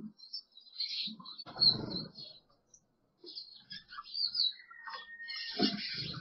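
Short high chirps and chip notes from cage birds, with a loud rustle about a second and a half in. Near the end comes a flurry of wingbeats as a male northern cardinal flies onto the nest.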